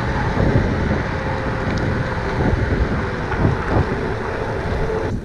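Wind buffeting a handheld phone's microphone on a mountain bike rolling fast along an asphalt road: a steady, heavy rushing noise.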